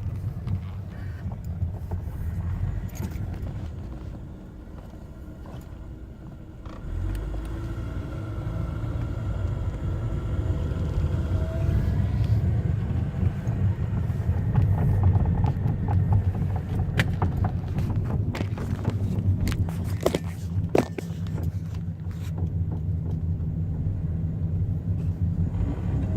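Road and drivetrain rumble inside the cabin of a moving 2005 Chevy Cobalt. The rumble dips for a couple of seconds about four seconds in, then builds again. Several sharp knocks come in the second half: the intermittent front-end knock that changes with speed, which the owner suspects is in the steering or drivetrain.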